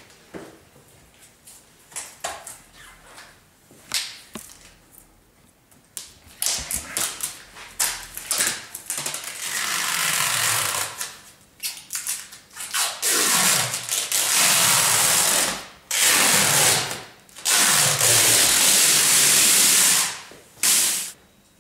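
Clear protective plastic film being peeled off an aluminium splashback panel: a few handling rustles and taps, then, about halfway through, four or five long, loud ripping pulls of a few seconds each.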